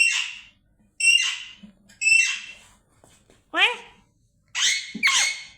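Parrot squawking harshly about once a second. Twice, a mimicked 'oye' call breaks in, its pitch rising then falling.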